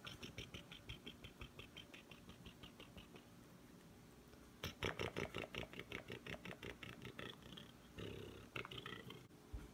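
A Siamese cat gnawing on a wooden pencil: rapid crunching bites, about seven a second, in runs, louder from about halfway through.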